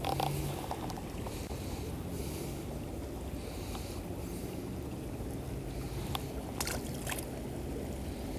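Steady rushing of the fast-flowing creek, with a few light clicks a little past the middle.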